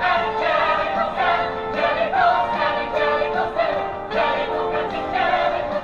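A choir singing over music, with many voices moving together in a song.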